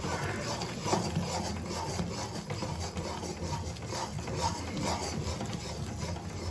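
Steel spoon scraping and stirring thick Mysore pak batter of gram flour, sugar syrup and ghee around a metal kadai, in rhythmic strokes about twice a second. The batter is cooked to the finished, frothing stage.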